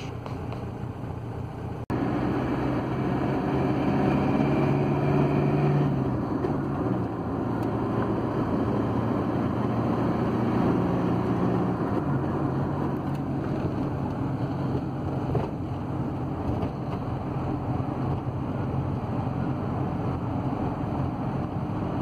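Ford Transit van's 2.4 Duratorq diesel engine running while driving, heard from inside the cab with road noise. The van is carrying a load. The sound cuts out briefly about two seconds in and comes back louder, and the engine note drops about six seconds in.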